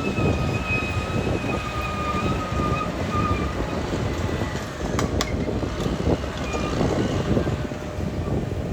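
Caterpillar D6R XL crawler bulldozer's diesel engine running while working, with a steady rough rumble. A steady high whine runs over it and fades out about three seconds in, and two sharp clicks come about five seconds in.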